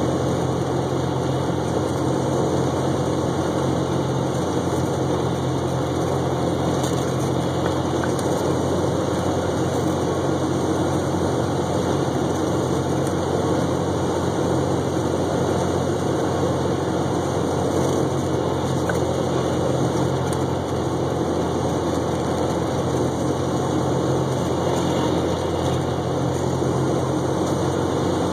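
Single-engine light aircraft's propeller engine running steadily, heard from inside the cabin.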